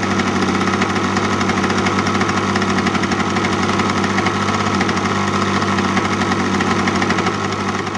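A small model aircraft combustion engine running at a steady speed, its buzzing pitch holding constant throughout.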